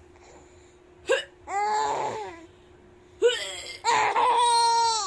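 Two short fake coughs, one about a second in and one about three seconds in. Each is followed by a baby's laughter, the second a longer, high-pitched squeal that falls in pitch.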